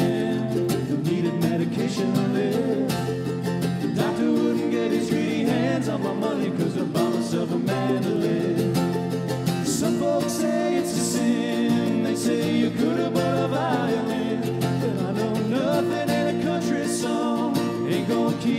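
Mandolin and mandocello playing together live, a Ray Black mandolin and a Duff mandocello: a run of quickly picked notes over chords in an instrumental break.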